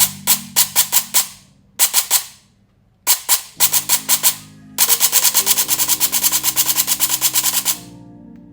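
Electric gel blaster with a dual-sector-gear V2 gearbox firing: short strings of sharp shots, then a continuous full-auto burst of about three seconds that stops abruptly near the end.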